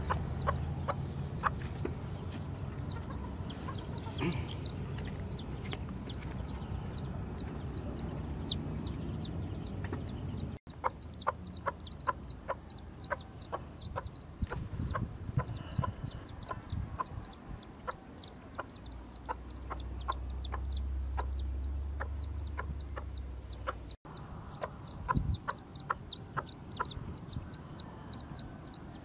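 A brood of newly hatched chicks peeping continuously: many short, high, falling peeps overlapping, several a second.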